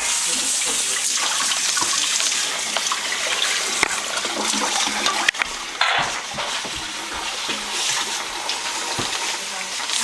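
Kitchen tap running into a sink as dishes are washed by hand, with a few clinks and knocks of dishware against the sink.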